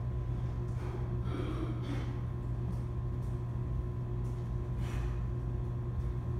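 A steady low hum, with a few short, breathy exhalations of someone breathing hard from exertion: one or two about a second in and another about five seconds in.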